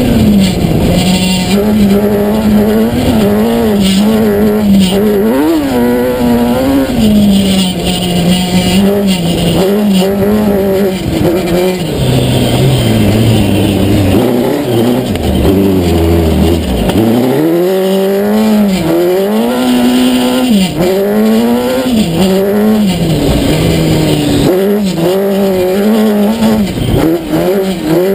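Kawasaki ZX-10R inline-four motorcycle engine powering a sand-rail buggy, heard onboard while driven hard: the revs rise and fall again and again through the throttle and gears, dropping low for a few seconds around the middle before picking up again.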